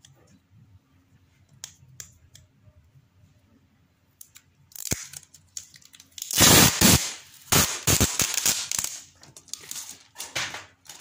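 Clear adhesive tape being peeled off its roll in several loud, noisy pulls, starting about halfway through. A few faint clicks of handling come before it.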